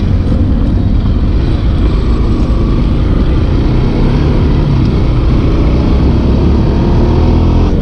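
Motorcycle riding along at steady speed, its engine running under heavy, steady wind rumble on the rider's microphone.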